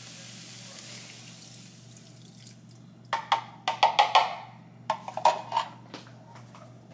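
Ground turkey sizzling in a saucepan, the hiss dying away over the first couple of seconds as taco-seasoning liquid goes in. Then, from about three seconds in, a quick run of sharp clinks and knocks: a spoon and utensils striking a glass measuring cup and the pan.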